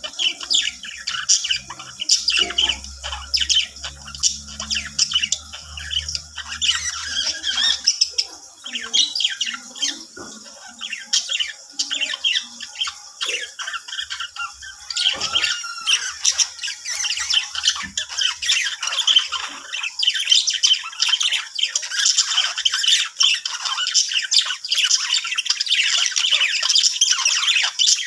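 Budgerigars chattering and chirping, a steady stream of rapid, high warbles and squawks that grows busier in the second half.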